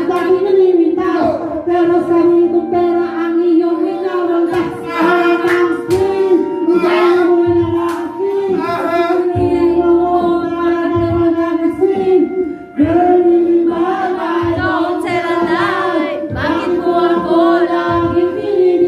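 Karaoke singing: voices singing into microphones over a music backing track, with long held notes.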